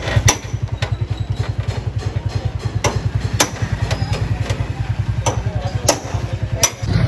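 Hammer blows on a chisel cutting into a stripped car body shell: a series of sharp metal strikes, at irregular spacing, over an engine idling close by with a fast, steady low throb.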